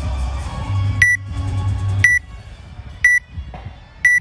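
Countdown timer beeping: four short, high electronic beeps, one a second, starting about a second in. A low bass from background music runs under the first two seconds and stops.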